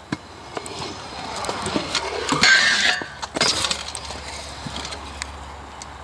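Stunt scooter wheels rolling on concrete, growing louder until about three seconds in, with a sharp clack just after the start and another a little past three seconds, then fading as the scooter rolls away.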